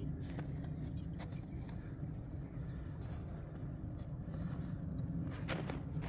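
Steady low rumble of wind on the microphone, with a few faint crunching footsteps in snow.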